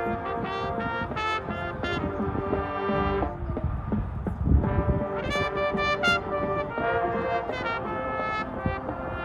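High school marching band playing its competition show, the brass section carrying sustained chords that change every second or so, with a louder, heavier low passage about four and a half seconds in.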